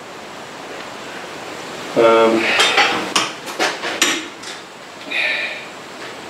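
Metal clanks and clinks of a bench vise being worked by hand, its sliding handle bar knocking against the screw as the jaws are adjusted. A run of sharp knocks comes a little past two seconds in, then a short metallic ring a little after five seconds.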